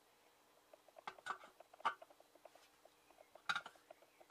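Sharp scrapes and clicks of a hand tool against the end of a Harley-Davidson Street 750 exhaust silencer, worked at to loosen its baffle: a few about a second in, one near two seconds and a cluster at about three and a half seconds. A faint, fast, even ticking runs underneath.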